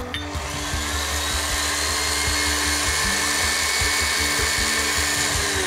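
Electric stand mixer with a wire whisk beating an egg into creamed butter and sugar. The motor's whine rises in pitch as it speeds up over the first couple of seconds, then runs steady.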